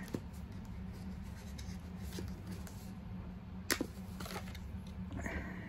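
Cards and paper being handled, with a few faint taps and one sharp click a little past halfway, over a steady low hum.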